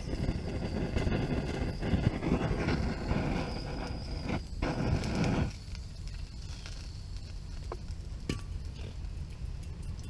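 Hand-held propane torch's flame hissing as it lights the fuel in a small stove, cut off about five and a half seconds in. After that, a few faint crackles from the newly lit fire.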